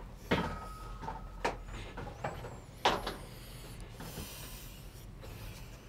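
Four soft knocks or clicks spread over the first three seconds, with a brief faint steady tone after the first, over a low steady background.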